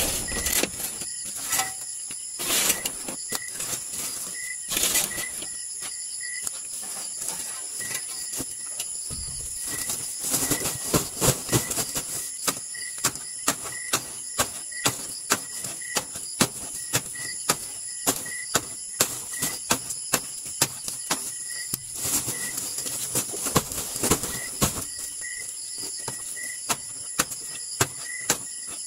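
Copra being packed down into a sack with a hand-held pole: sharp knocks, a few at first, then a regular run of roughly one to two a second from about ten seconds in. Insects trill steadily behind, with a regular high chirp.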